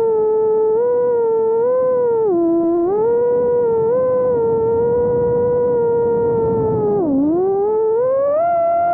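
Motors of a 4-inch FPV quadcopter whining steadily in flight. The pitch dips sharply twice, first about two and a half seconds in and again near seven seconds, as the throttle is cut back, then climbs near the end as power is added.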